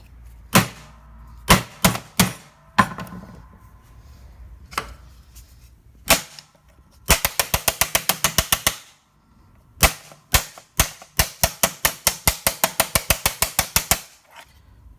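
Sharp knocks and clicks from the radio being worked on: a few separate hard strikes, then two quick runs of clicking at about ten clicks a second, the second one longer.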